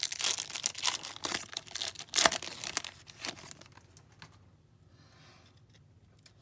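Foil wrapper of a hockey card pack being torn open and crinkled in the hands: a dense crackle, loudest about two seconds in, that dies down to a faint rustle after about three and a half seconds.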